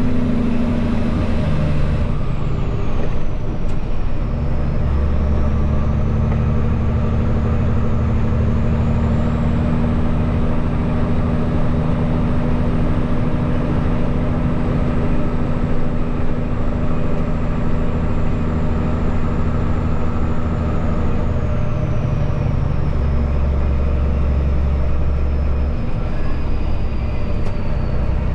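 Peterbilt semi truck's diesel engine running under way, heard from inside the cab, its low drone shifting in strength a few times. A faint high whine rises and falls above it.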